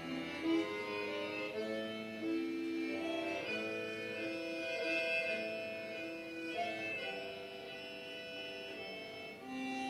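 Slow instrumental music of long, overlapping held notes that shift in pitch every second or so.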